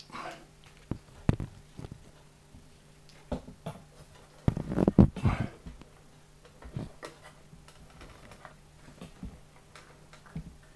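Handling noise: Pilea leaves and stems brushing and tapping against the camera as it is pushed in among the plant. Scattered short clicks, with a louder cluster of knocks and rustles about halfway through, over a faint steady low hum.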